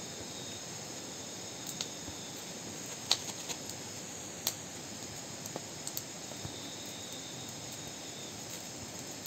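Wood campfire crackling faintly, with a few sharp pops scattered through, over a steady high-pitched hum of night insects.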